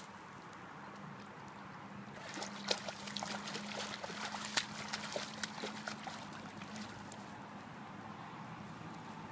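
Hooked carp thrashing in shallow muddy water at the bank, a run of splashes from about two seconds in that dies down after about seven seconds.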